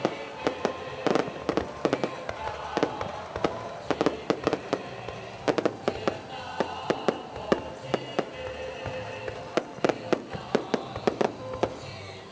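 Fireworks going off: rapid, irregular bangs and crackles, several a second, with some louder reports among them, over music playing underneath.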